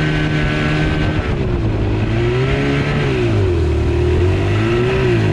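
Outboard motor running on a boat: its note holds steady for about a second, then drops and rises unevenly, as with changing throttle or surging.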